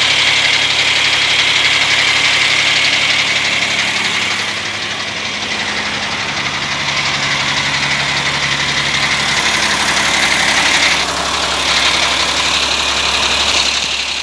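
Diesel engine of a 2007 Sterling L9500 dump truck idling steadily, heard close to the open engine bay, with a steady hiss over the low engine note.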